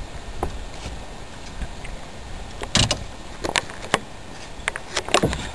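Hooked bass landed by hand beside an aluminum fishing boat: a handful of sharp knocks and splashes at the hull, the loudest about three seconds in.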